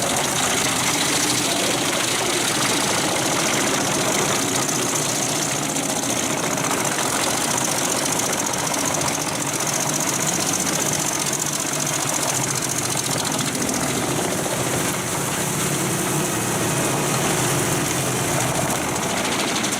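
Pezzolato PTH 1400/1000 Allroad self-propelled drum wood chipper running under load: its 700 hp Volvo engine drones steadily while the steel drum chips logs, in a loud, unbroken noise.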